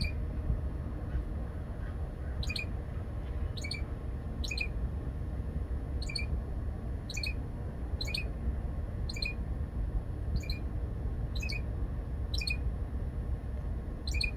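A songbird calling: a short, sharp note repeated about once a second, now and then doubled, over a steady low rumble.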